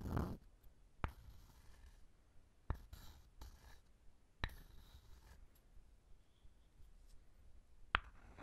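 Wooden objects tapped sharply four times, a few seconds apart, with soft scratching and rubbing on wood between the first few taps.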